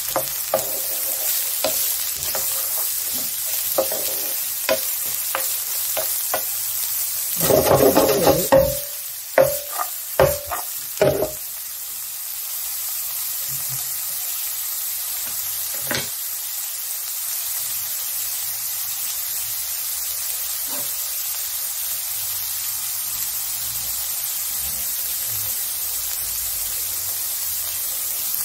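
Diced carrots, shallots and garlic sizzling in oil in a nonstick frying pan over high heat. A utensil stirring and knocking against the pan gives scattered clicks early on, with a loud cluster of scrapes about 8 to 11 seconds in. After that comes a steady, even sizzle.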